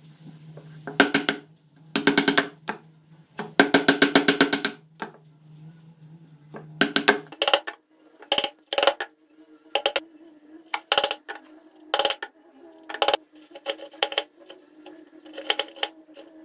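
Mallet blows on a wood chisel chopping a mortise in a softwood board: bursts of quick taps in the first few seconds, then mostly single blows about once a second, over a steady low hum.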